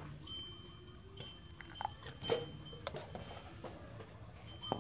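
Metal ladle clinking and scraping against an aluminium pot as rice porridge is ladled into a bowl: a few light knocks, the sharpest about halfway through.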